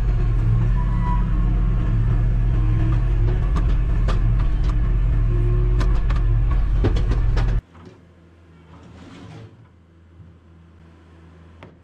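Bobcat skid-steer loader's diesel engine running steadily at about 1,700 rpm, heard from inside the cab, while broken concrete clatters and knocks into a dump trailer as the bucket is emptied. About seven and a half seconds in, the engine sound cuts off abruptly, leaving only faint background sounds.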